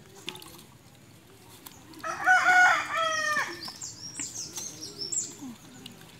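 A rooster crowing once, about two seconds in: a single cock-a-doodle-doo of about a second and a half. It is followed by a series of faint, high, quick downward-sliding chirps.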